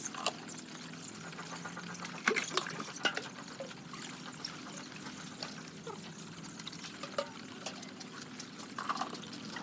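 Broiler chicks: scattered light taps and short sounds over a steady low hum, with a few louder taps about two and three seconds in.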